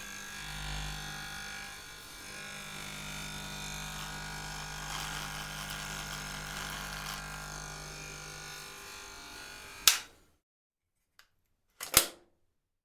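Electric shaver running with a steady buzzing hum, which cuts off with a loud click about ten seconds in. A faint click and then a sharp double click follow near the end.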